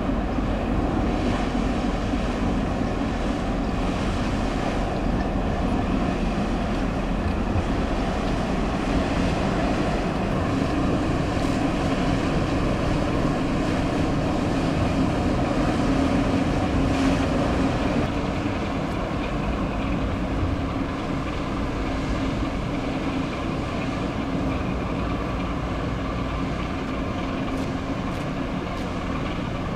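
Harbour tug's diesel engine droning steadily as it passes under way, a little louder near the middle and easing off later, mixed with wind on the microphone and the wash of water.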